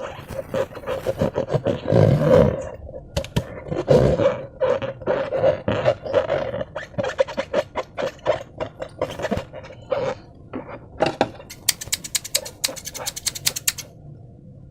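Slime being squished and handled in a rubber balloon: a string of irregular squelches and rubbery squeaks, then a fast run of crackling clicks near the end.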